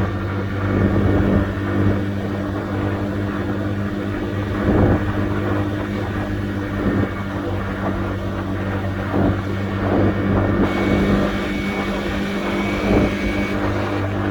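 Honda Dio AF62 scooter's 50cc four-stroke single-cylinder engine running at a steady idle.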